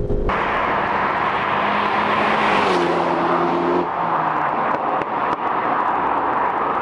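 Car passing close by on a dual carriageway at speed. Tyre and engine noise swell to a peak about two and a half seconds in, with a brief engine note, then carry on as the car draws away amid steady traffic noise.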